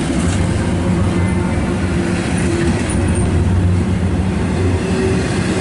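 Double-stack intermodal well cars of a freight train rolling past: a loud, steady rumble of steel wheels on rail.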